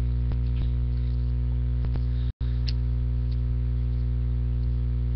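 Steady low electrical mains hum, with a few faint clicks of Magic: The Gathering cards being slid and flipped from hand to hand. The sound cuts out for an instant about two and a half seconds in.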